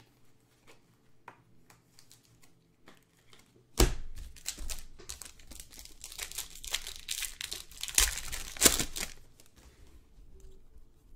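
A trading card pack wrapper torn open and crinkled by hand: a few light clicks at first, then a sudden loud rip about four seconds in and several seconds of dense crinkling, loudest near the end, that then trails off.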